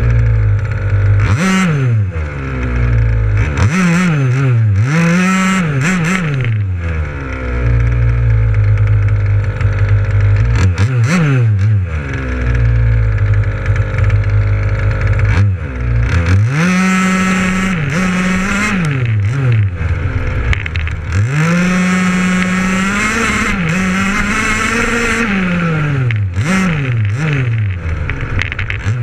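1/5-scale KM Baja RC buggy's small two-stroke petrol engine, heard up close from on board, revving up and down over and over as the throttle is opened and released. In the second half the revs are held high for longer stretches.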